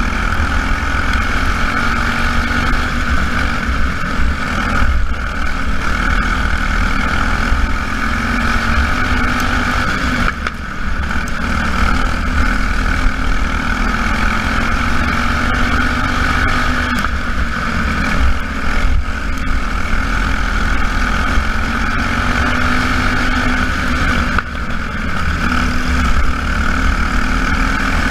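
Engines of small race cars running continuously during a race, with their pitch slowly rising and falling as they accelerate and lift.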